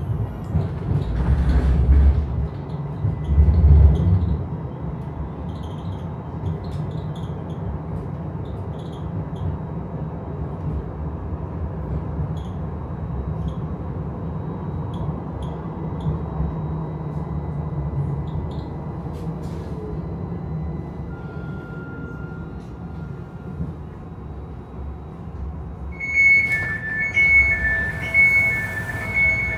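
Interior of a Pesa Twist 147N low-floor tram in motion: a steady low rumble of wheels and running gear, with two heavier low rumbles in the first few seconds. Near the end, a regular electronic beeping on two alternating pitches begins, the tram's door signal.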